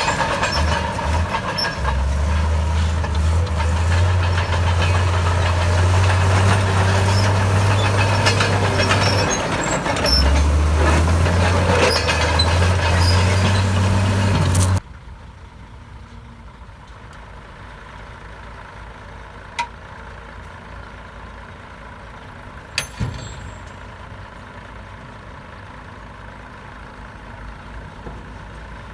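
Komatsu D68 bulldozer's diesel engine running loud and steady with a deep drone, cut off abruptly about halfway through. After that there is a much quieter steady background with two short sharp knocks a few seconds apart.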